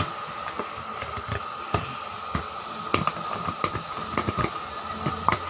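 A craft-knife blade scraping and picking at old glue and voice-coil remains around the pole piece at the centre of a speaker cone, giving irregular sharp clicks and scratches over a steady background hum.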